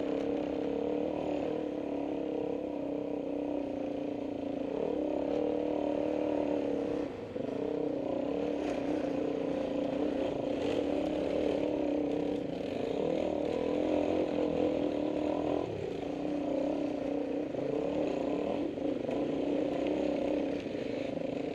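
Dirt bike engine running under load on a rutted trail climb, revs rising and falling with the throttle and dropping briefly twice.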